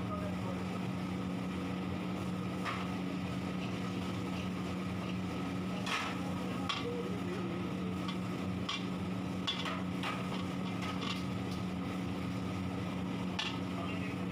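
Sliced onions and whole spices frying in bubbling oil in a large steel kadhai, stirred with a long metal ladle that knocks and scrapes against the pan about half a dozen times. A steady low hum runs underneath.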